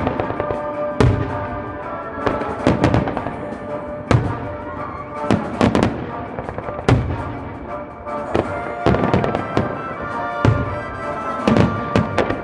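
Aerial fireworks shells bursting in quick succession, a dozen or so loud bangs, some followed by crackling, with music playing underneath.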